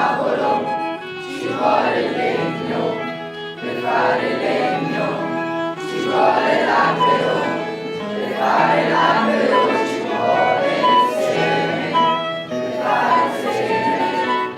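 A choir singing, with held low notes underneath.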